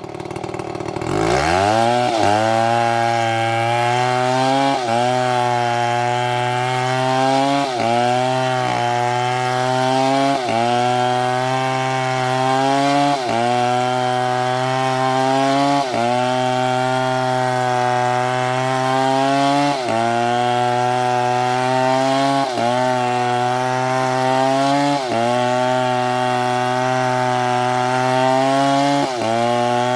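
A STIHL chainsaw, its engine dropping low and then revving back up about a second in. It then runs at high speed while cutting wood, its pitch dipping briefly every few seconds.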